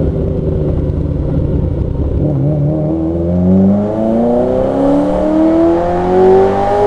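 Carburetted V8 of a Ferrari 308 through a newly remade exhaust, running low in second gear and then accelerating from about two seconds in, its note rising steadily as the revs climb.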